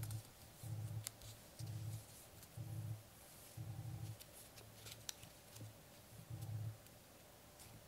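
Soft crackles and rustles of a square of origami paper being folded and creased by hand, over a low hum that pulses about once a second.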